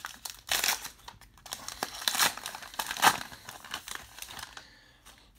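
Crinkling and tearing of a baseball card pack wrapper being opened, a run of irregular rustles that dies away about a second before the end.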